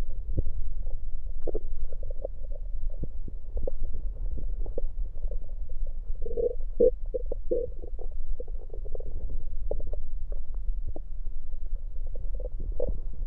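Stomach and gut sounds heard through an electronic stethoscope pressed to the belly after gulping down Coke: a steady low rumble with many short pops and gurgles, and a cluster of louder gurgles about six to seven and a half seconds in. This is carbonated soda and its gas moving inside the stomach.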